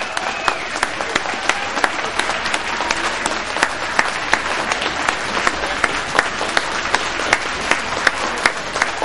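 Audience applauding steadily, with many individual sharp claps standing out.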